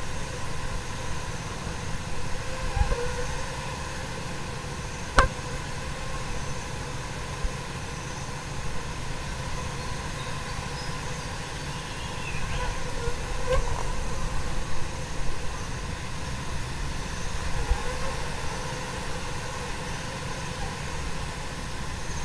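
A dense swarm of tiny fruit flies whirring around the microphone, countless wingbeats blending into a steady hiss like rain with a faint hum. One sharp tap about five seconds in, and the swarm swells somewhat around the middle.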